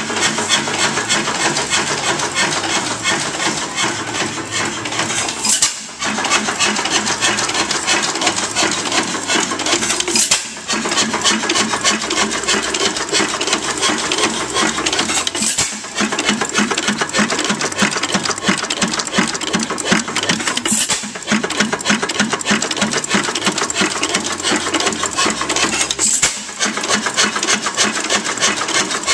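5 HP Galloway round rod hit-and-miss engine running: a fast, steady mechanical clatter from the engine and rig, with a sharp hit about every five seconds as it fires and then coasts between firings.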